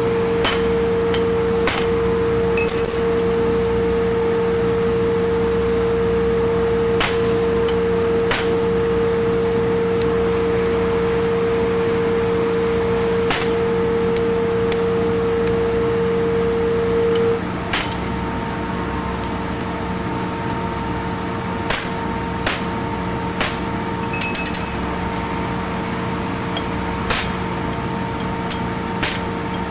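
A machine running steadily, with a low hum and a strong high whine. About seventeen seconds in the whine drops away, the level falls slightly and a fainter, higher whine takes its place. Light metallic clicks and clinks come now and then.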